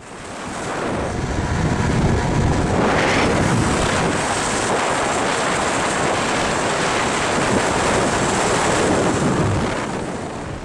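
Steady rushing wind and road noise of a moving car. It fades in at the start and fades out near the end.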